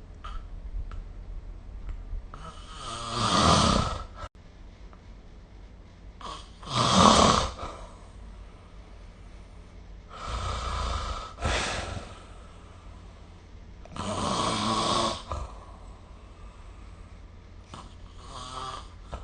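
A person snoring in a steady rhythm, with a loud snore about every four seconds and quieter breathing between; the last snore, near the end, is softer.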